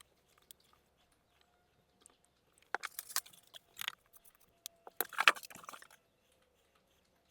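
Small hardwood pieces being handled and fitted at a box joint during a glue-up: short clicks, taps and scratchy scrapes of wood on wood, in two brief clusters, the second about five seconds in.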